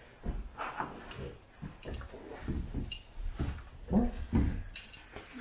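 A goldendoodle making several short, soft vocal sounds, the strongest about four seconds in, with a few light clicks in between.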